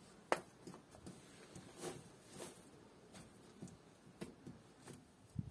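Quiet, scattered rustles and small clicks of hand work in grass and loose stone, with one sharper click about a third of a second in.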